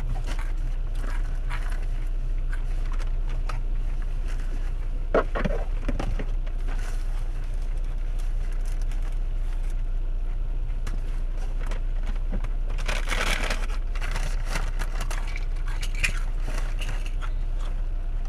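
Crinkling, crackling and scraping of a fried-chicken takeout meal being handled in the lap, in short bursts, the busiest about five seconds in and again around thirteen seconds, over a steady low rumble.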